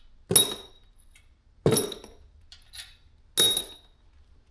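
Three sharp metallic clinks with a brief ringing, about a second and a half apart: steel head bolts from a Chevy 350 small-block dropped one at a time onto metal.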